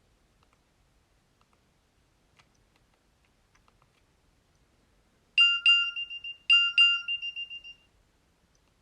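Nokia 3200 mobile phone playing a short electronic alert tone. It is a quick double note followed by a held, pulsing note, sounded twice about a second apart. A few faint clicks come before it.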